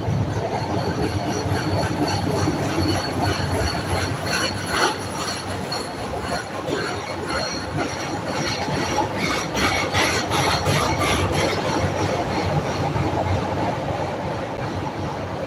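CTA elevated rapid-transit train rolling along the station platform: the rumble of the cars, steady high-pitched wheel squeal, and clusters of clacks from the wheels on the rails about five seconds in and again around ten seconds in.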